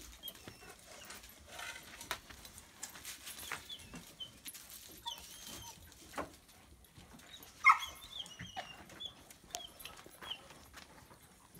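Dogs moving about on dirt with small rustles and clicks, and one short, loud yip from a dog about eight seconds in.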